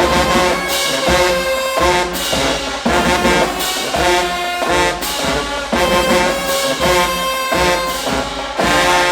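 High school marching band playing: loud brass with trombones and trumpets over a steady drum beat, ending in a sharp cutoff right at the close.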